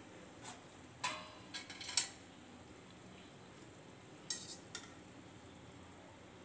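Long metal skewer clinking against a steel kadai while murukku are turned and lifted out of the frying oil: a quick run of ringing metal clinks about a second in, the loudest near two seconds, and two more a little after four seconds.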